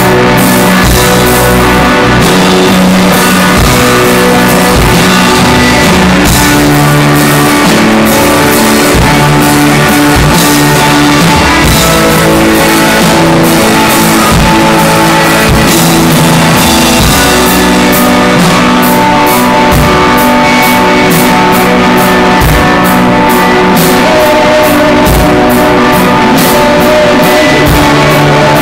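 A rock band playing live, loud: electric guitars over a drum kit, with no singing. The drum hits grow busier in the last third.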